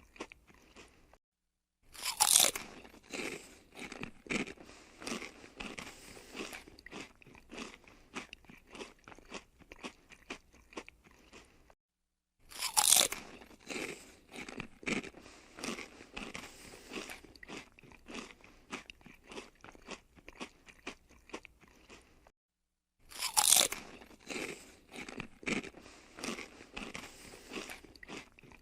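Crisp fried potato chips being bitten and chewed. Each run opens with a loud crunch of the bite, followed by many smaller crunching chews. The same recording plays three times, each time after a brief moment of silence.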